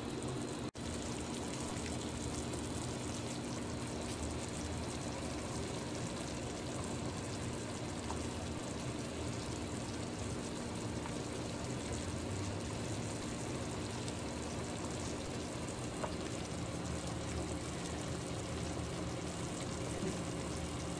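Broth boiling uncovered in a large stainless-steel stock pot on a gas burner: a steady bubbling and simmering hiss.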